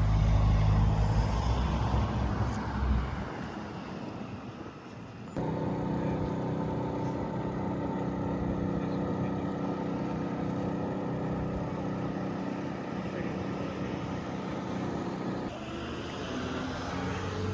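An engine running steadily, a deep rumble with a constant hum. The sound changes abruptly about five seconds in and again near the end.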